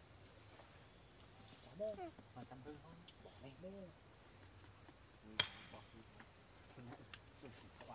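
Insects keep up a steady, high-pitched drone. A few short calls that rise and fall come from an animal in the background about two to four seconds in, and there is a single sharp click about five and a half seconds in.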